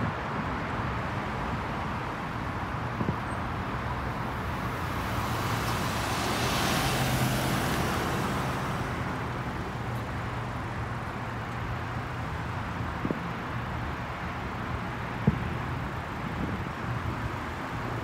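Road traffic: a steady rumble of cars on a multi-lane road, with one car's tyre hiss swelling and fading as it passes close around the middle. A few short sharp pops stand out, the loudest late on.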